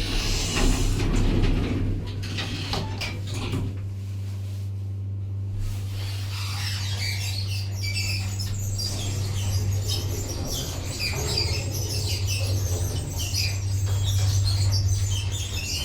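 Chained hydraulic passenger lift travelling down: a steady low hum throughout, with a rush of noise in the first two seconds and many quick high squeaks and chirps from about six seconds in.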